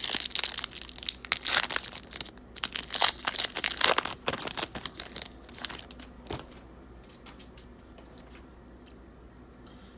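Trading card pack wrapper being torn open and crinkled by hand, with dense crackling for about six seconds. It ends in a single click, then only faint handling noise of the cards.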